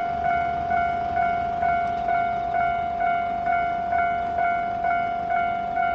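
Japanese railroad crossing warning bell ringing, the level crossing alarm that sounds as a train approaches: an even, repeated ding about two strikes a second on one steady tone.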